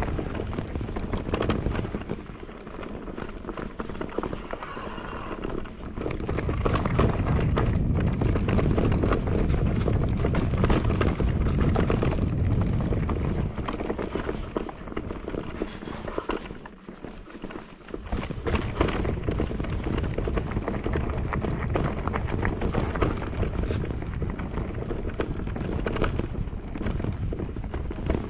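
Electric mountain bike riding over a rough, rocky trail: the tyres crunch and knock over stones and the bike rattles, louder and quieter in stretches with a lull about two-thirds through.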